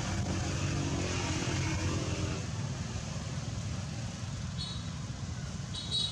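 Steady low rumble of background noise, with two brief high squeaks or chirps near the end.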